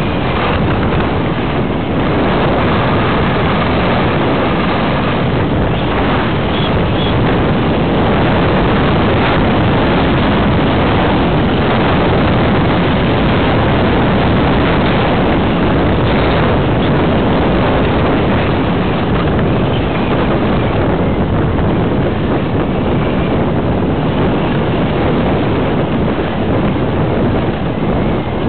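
Skis running fast over groomed snow, with wind rushing over the camera's microphone: a loud, steady rush.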